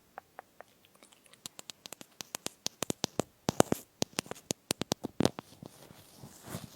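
Close-miked crunching of crisp fruit chips being chewed: a rapid run of sharp crackles, sparse at first and much denser from about two seconds in.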